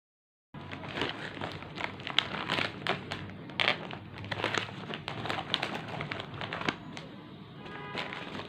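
Plastic chip packets crinkling and crackling as they are handled, a dense run of sharp crinkles starting about half a second in.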